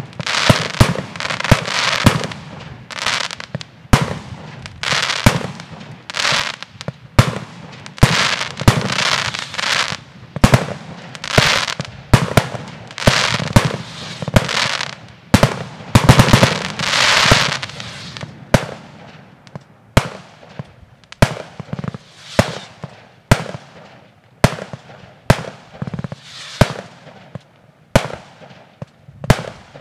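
Fireworks display: a fast series of shell bangs and launch thumps, many followed by crackling and fizzing from the bursts. The bangs are loudest and most packed in the first half and grow weaker after about eighteen seconds.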